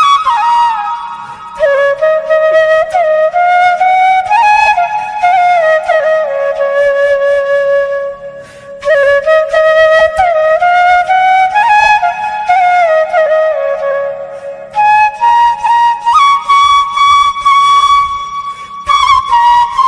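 Background music: a solo flute melody with sliding, ornamented notes, pausing briefly twice.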